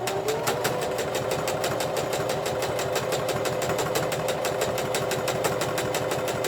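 Electric sewing machine running steadily, its needle stitching at about eight stitches a second over a constant motor hum.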